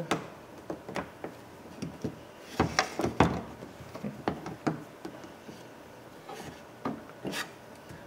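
A replacement exterior door handle knocking and scraping against the door's sheet-metal opening as it is pushed and worked into place. There are scattered light clicks and knocks, with a louder cluster about three seconds in and another single knock near the end.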